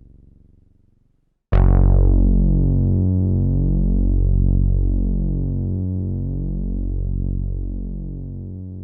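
Korg EX-800 synthesizer bass sound. The tail of the previous note fades out, then about a second and a half in a new low note hits with a bright attack that dulls quickly. The note is held with a slow, regular wavering and gradually fades.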